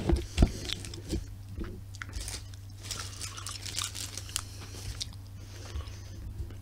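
A person chewing and crunching snacks close to the microphone, in irregular crackly bites, over a steady low electrical hum.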